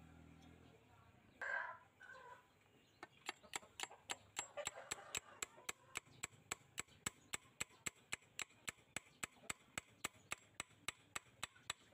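A chicken clucks loudly about a second and a half in. From about three seconds in, a steady run of sharp taps follows, about five a second, as the wooden handle is worked onto the restored knife blade's tang.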